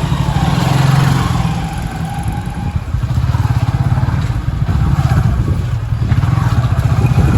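Busy road traffic: motor vehicle engines running and passing in a continuous loud rumble that swells about a second in.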